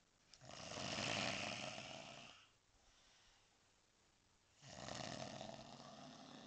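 A man snoring very loudly: two long snores of about two seconds each, some four seconds apart, with quiet breathing between.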